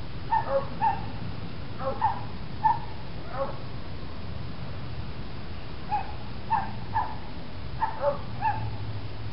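A dog yipping: short high yelps in clusters, a few at the start and more in the second half, over a steady low hum.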